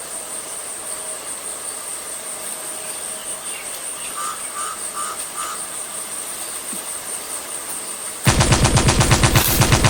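Night ambience of insects chirring steadily in a high, evenly pulsing tone, with a few faint croaks about halfway through. Near the end a loud, rapid rattle of sharp bangs, about eight a second, starts suddenly, like automatic gunfire.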